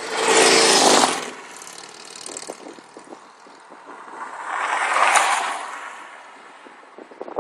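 Vehicle noise swelling and fading twice: a loud rush in the first second and a second one peaking about five seconds in, like vehicles going past.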